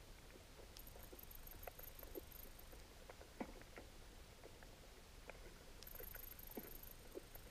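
Faint underwater ambience: scattered soft clicks and ticks over a low rumble, with a high, rapidly pulsing whine coming in twice, once about a second in and again near the end.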